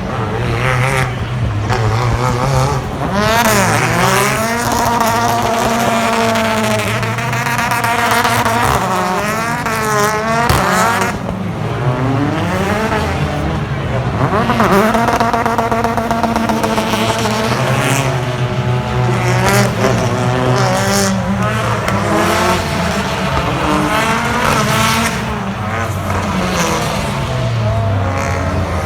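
Several British Touring Car Championship race cars running hard, their turbocharged 2.0-litre four-cylinder engines overlapping and rising and falling in pitch through gear changes, with pitch sweeping sharply down and up again every few seconds.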